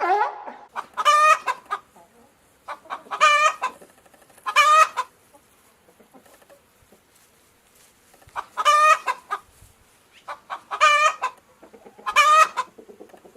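Domestic fowl calling: short, loud, pitched calls repeated in clusters a second or more apart, with quieter gaps between them.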